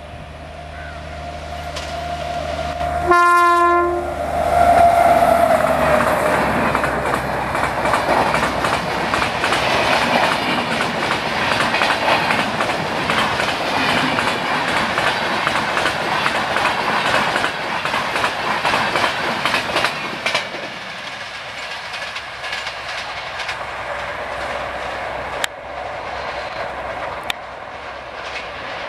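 Indian Railways WAP7 electric locomotive sounds a short horn blast about three seconds in as it approaches at speed, and a whine drops in pitch as it passes. Its LHB passenger coaches then rush by with a loud rumble and rapid clickety-clack of wheels over the rails, which eases off in the last several seconds as the train recedes.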